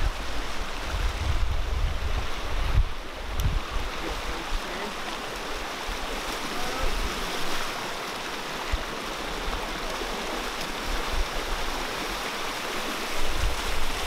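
Shallow floodwater rushing over mud and gravel in a steady hiss, with low rumbles in the first three seconds and again near the end.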